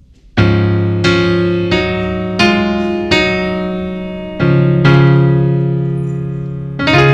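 Keyboard with an electric-piano sound playing the slow introduction to a gospel song: a series of sustained chords, each struck and left to fade.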